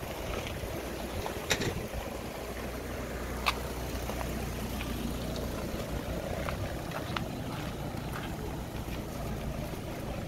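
Steady outdoor background noise with a low rumble that eases off about six and a half seconds in, and scattered light clicks and taps, the sharpest about one and a half and three and a half seconds in.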